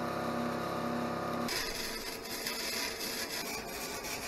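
Electric arc welding on a steel trailer frame: a steady buzzing arc. After a cut about one and a half seconds in, a hissier crackle of another weld follows.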